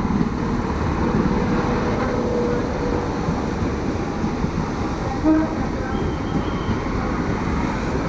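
Electric multiple-unit commuter train running past close alongside the platform: a steady, loud rumble of wheels and running gear, with a brief tone about five seconds in.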